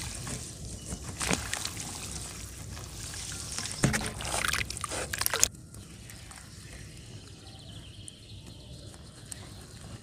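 Dry earth being crumbled by hand into a metal basin of water: crumbs and powder pattering and sloshing into the water in dense, uneven bursts. About five and a half seconds in the sound drops suddenly to a quieter, steady noise.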